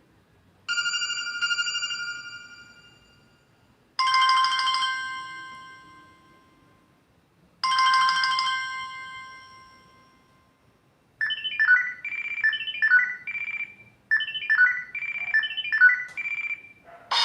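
Samsung Galaxy S2 ringtones and notification tones playing one after another. First come three single bell-like chimes a few seconds apart, each fading away slowly. Then a short, quick melody of electronic notes plays twice.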